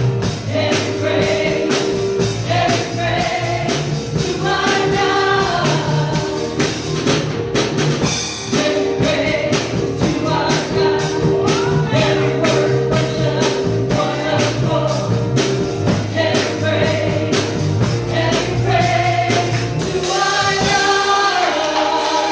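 Gospel praise music with a choir singing over a steady beat, with tambourine and a bass line. The bass drops out near the end while the singing goes on.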